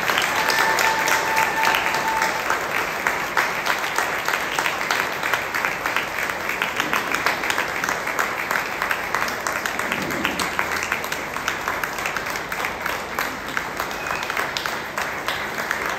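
Audience applauding steadily in a large room, with one voice holding a brief cheer about a second in.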